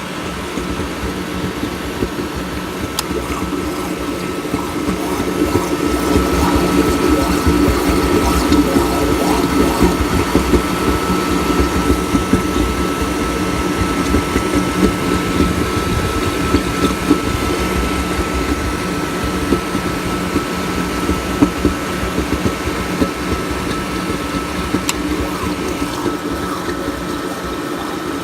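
Water running steadily with a rushing sound and a thin steady tone throughout, swelling in loudness a few seconds in.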